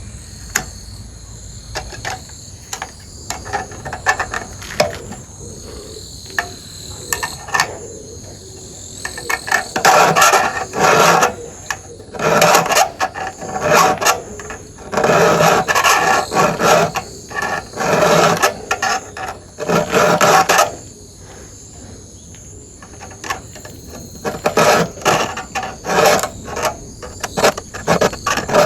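Round chainsaw file rasping across the cutters of an electric chainsaw's chain in repeated back-and-forth strokes, sharpening the teeth. The strokes are sparse at first, come in a steady run of about one a second through the middle, and pick up again near the end.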